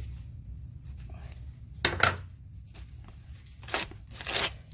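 Scissors cutting through packing wrap, three short cuts: the first about two seconds in, two more close together near the end.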